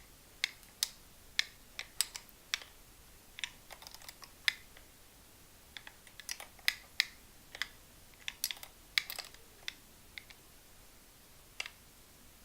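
Irregular sharp clicks and taps from a cordless trim router being handled while its bit is fitted and the collet nut tightened with the spindle lock held.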